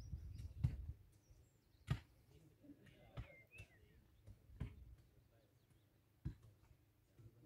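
Quiet hillside ambience: wind buffeting the microphone in the first second, a handful of scattered light clicks and knocks, and a faint short bird chirp near the middle.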